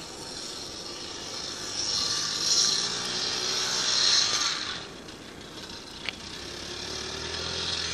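Small 50cc Baja motorbike engine revving as it pushes through deep snow. It is louder from about two seconds in, drops off briefly, then rises again near the end.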